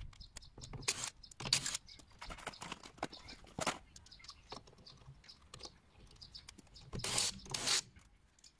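Scattered clicks, clinks and scrapes of hand tools and small metal parts being handled on gravel, with louder scraping bursts about a second in, near four seconds in, and again around seven seconds in.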